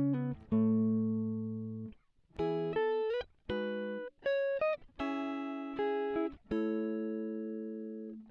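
Background music: a guitar playing plucked chords in short phrases, each chord ringing and fading, with a brief pause about two seconds in.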